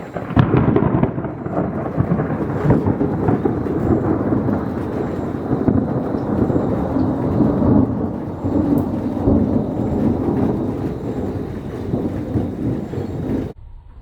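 Thunder from a cloud-to-ground lightning strike: a sudden sharp crack about half a second in, then a long, loud rolling rumble. It cuts off abruptly near the end.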